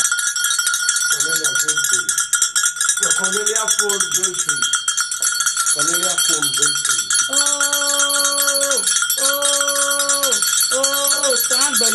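A small metal bell rung very rapidly and without pause, a steady shimmering jangle. Over it a voice chants in short phrases, then holds three long, level notes.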